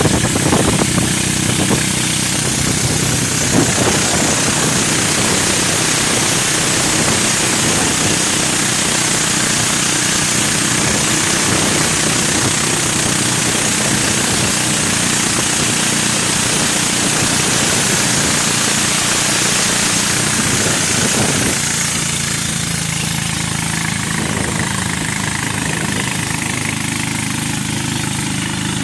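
Boat engine running steadily under way on the river, with a rush of water and wind over it; the engine eases off slightly about 21 seconds in.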